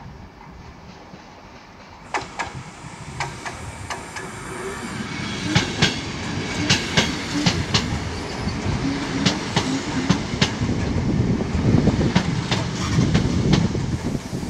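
Mark 3 passenger coaches of a train led by Driving Van Trailer 82127 rolling past along the platform. The wheels click sharply over rail joints above a low rumble, and the sound grows louder from about two seconds in as the coaches come alongside.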